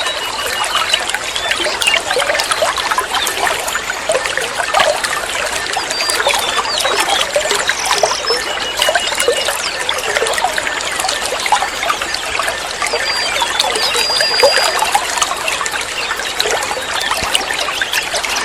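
Water trickling and splashing steadily, like a small fountain or stream, with a few short, high whistled notes over it.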